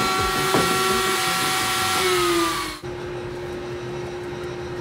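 Router with a flush-trim bit running at full speed, a steady high whine over cutting noise, as walnut is trimmed flush. About two seconds in the whine starts to drop in pitch as the router winds down, then the sound gives way to a faint steady hum.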